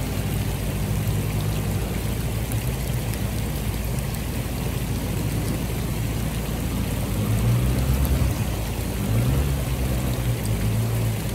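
A 4x4's engine running at low speed on a track, picking up twice in the second half, under a steady hiss of rain.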